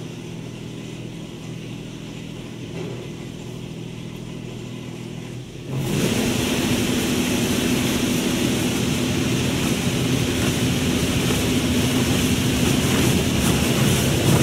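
Automatic car wash heard from inside the car: a steady hum of the wash machinery, then about six seconds in, water spray suddenly starts hitting the car and runs on as a loud, steady hiss over the droning pump.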